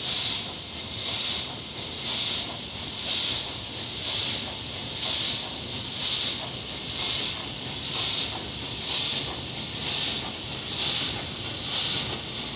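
Steam locomotive working slowly, its exhaust chuffing as a hissing puff about once a second in an even rhythm.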